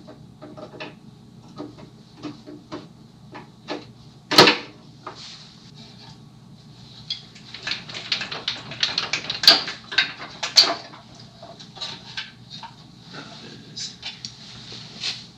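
Sheet-metal engine tinware on an air-cooled VW engine being worked and shimmied loose by hand: scattered light clicks and clanks, a single loud metallic knock about four seconds in, then a busier stretch of rattling clanks.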